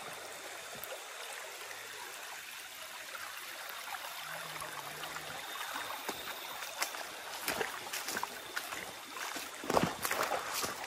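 Water trickling steadily into a small pool under a big rock, with a few sharp knocks in the second half.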